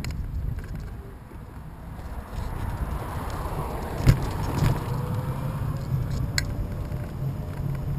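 A car passing on the road alongside, its noise swelling and fading in the middle, over steady low wind rumble on the microphone of a moving camera. A few sharp clicks are heard around the middle and later.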